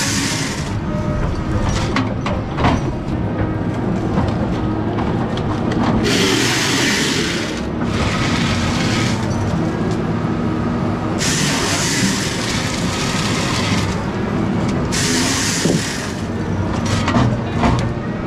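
Heavy forestry harvesting machine running with a steady low engine rumble, broken by long bursts of loud rushing noise about six, eleven and fifteen seconds in, with a few knocks between.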